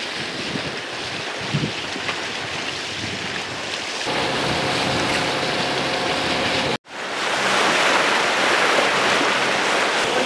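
Water rushing and splashing along a sailing yacht's hull, with wind buffeting the microphone. A faint steady hum joins about four seconds in. The sound drops out for an instant near seven seconds in, then the wash returns louder.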